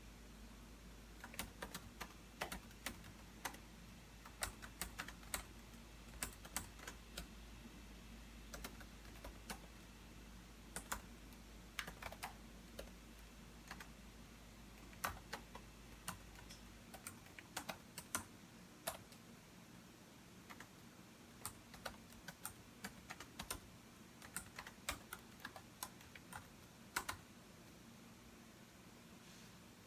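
Typing on a computer keyboard while composing an essay: faint, irregular runs of keystrokes with short pauses, thinning out near the end.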